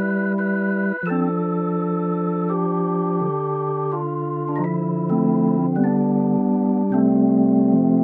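Sampleson CollaB3 virtual tonewheel organ, a Hammond B3 emulation on its default preset, playing sustained chords that change every second or so. Some new chords start with a short click, and the upper notes waver slightly.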